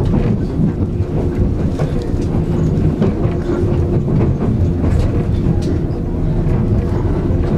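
Running noise of a JNR 189 series electric train heard inside the passenger car: a steady low rumble and hum from the moving train, with a few wheel clicks over rail joints.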